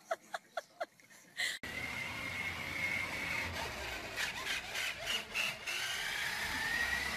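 A battery-powered toy dump truck running across a hardwood floor: a high electric motor whine over the steady rumble of its plastic wheels, the whine fading midway and coming back rising near the end. Before it, for about the first second, a dog whimpers in short high cries a few times a second.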